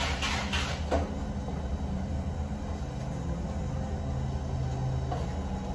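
Steady low hum and rumble of background machinery, with a few faint clatters in the first second.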